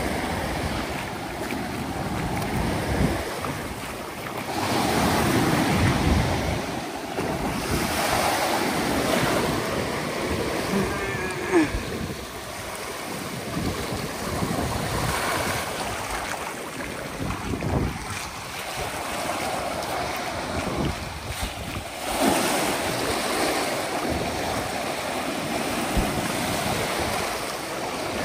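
Sea waves breaking and washing on a shore, surging louder every few seconds, with wind buffeting the microphone.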